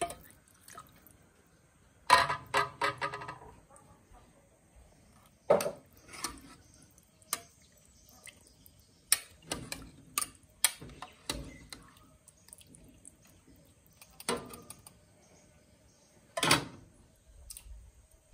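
Metal cooking pots, a lid and a spoon clinking and knocking now and then: a quick run of ringing knocks about two seconds in, then single knocks spaced a few seconds apart.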